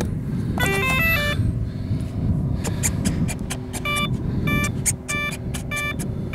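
Electronic speed controller of an electric RC warbird sounding its start-up tones just after the flight battery is plugged in: a quick run of stepped beeps about a second in, then short beeps repeating about twice a second from about four seconds in. A steady low rumble lies underneath.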